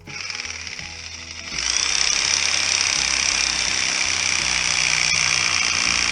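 Reciprocating saw cutting through a thick tree root, running steadily and getting louder about a second and a half in as the blade bites, then cutting off suddenly.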